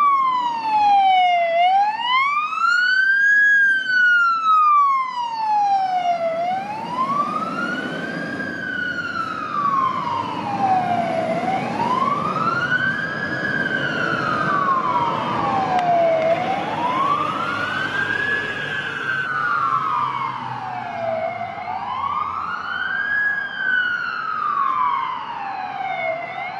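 Scania P370 fire rescue truck's siren on a slow wail, rising and falling about every five seconds, with the truck's engine running underneath from a few seconds in as it drives off.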